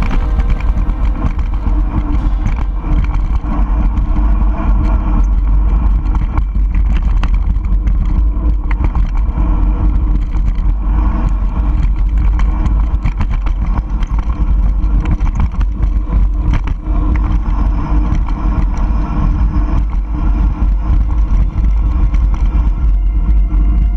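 Wind buffeting an action camera's microphone as a mountain bike rides along a rough road and dirt track, with the bike rattling and knocking over bumps.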